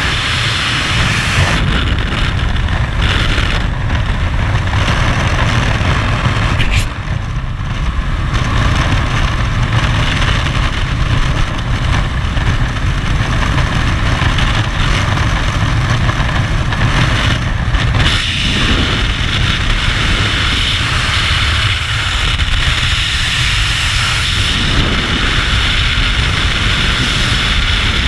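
Loud, steady wind blast at the open door of a propeller jump plane, mixed with its engine drone, changing about two-thirds of the way through into the rush of freefall wind over a helmet camera's microphone.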